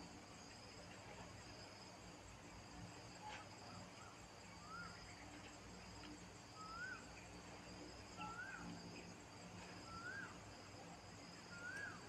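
Faint steady insect drone, high-pitched, with a short rising-then-falling chirp repeated every second and a half or so from about four seconds in.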